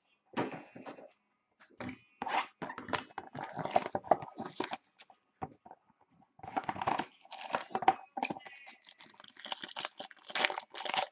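Trading-card packaging being torn open and crinkled: a sealed card box and its wrapper ripped and handled in irregular bursts of tearing and rustling.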